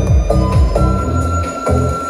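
Electronic dance music with a steady, punchy kick drum at about two and a half beats a second, played loud through an event PA system of line-array speakers and subwoofers as a music test.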